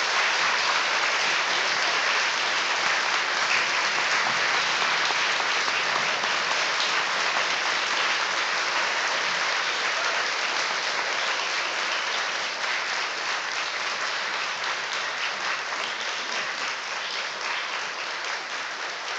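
A large audience of students clapping in sustained applause, slowly easing off toward the end.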